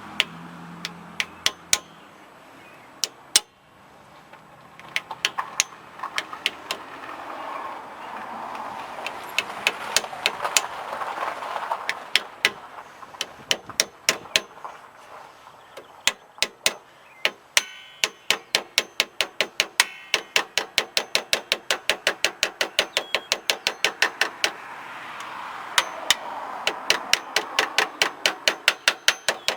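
A hammer tapping the new axle seal into a GM 8.5 rear axle housing with many sharp, ringing blows. They come in scattered runs at first, then past the halfway point settle into a fast, even run of about three to four taps a second.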